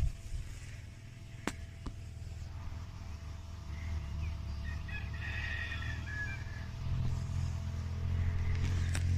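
A rooster crowing faintly about four seconds in, over a steady low rumble that grows louder near the end, with a few short sharp clicks.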